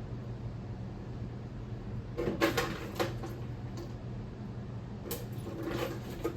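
Clusters of clattering knocks, like objects being handled or set down, about two seconds in and again around five seconds in, over a steady low hum.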